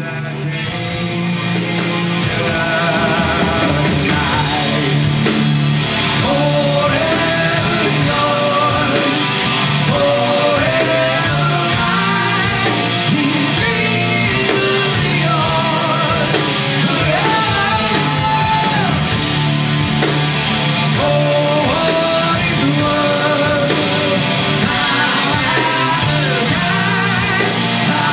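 Rock band playing live: electric guitar, bass guitar and drum kit, with a lead vocal sung over them. The full band swells up in the first couple of seconds and then plays on steadily and loud.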